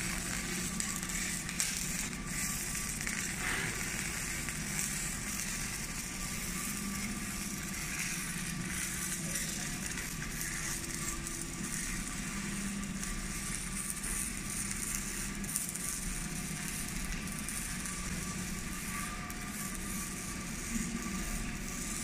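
Steady factory-hall machinery noise: a low hum and a continuous rushing din, with a few faint knocks and clicks.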